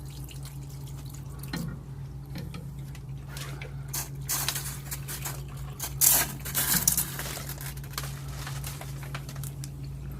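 Water dripping and splashing as ice is melted and cleared off a frozen walk-in freezer evaporator coil, with louder splashes about four and six seconds in, over a steady low hum.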